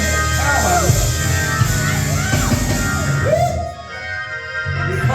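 Live gospel church music: held keyboard chords under a voice singing with sliding pitch, the low chords dropping out for about a second near the end.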